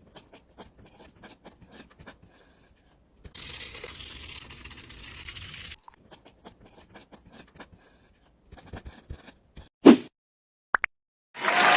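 Small clicks, scraping and crunching of hand crafting work on a miniature building, with a stretch of steady scraping about three seconds in. A sharp thump sounds near ten seconds in, and a loud applause-like noise starts just before the end.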